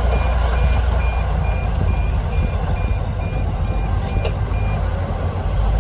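Reversing alarm on a heavy construction vehicle beeping about twice a second over the low, steady running of a diesel engine. The beeping stops near the end.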